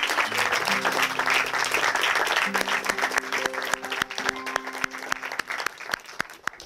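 Crowd applauding a ribbon cutting, over music with held notes and plucked strings. The applause thins to scattered single claps near the end.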